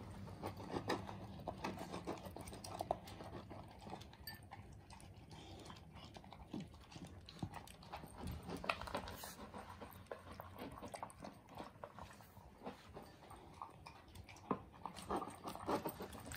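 A beagle and a Pomeranian eating dry kibble from bowls: irregular crunching and small clicks of chewing and of kibble against the bowls.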